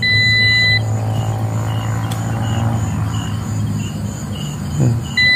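Digital multimeter's continuity buzzer sounding a steady high beep for under a second at the start and again near the end, over a low steady hum. The beeps come as the probes find a shorted, dead power transistor on the sewing machine's motor-driver board.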